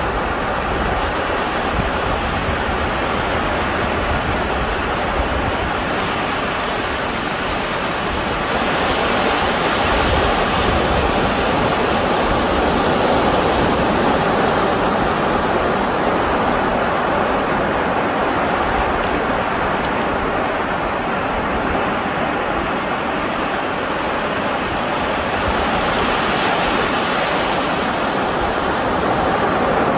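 Steady rush of sea surf washing on the shore, swelling and easing slowly, with wind rumbling on the microphone.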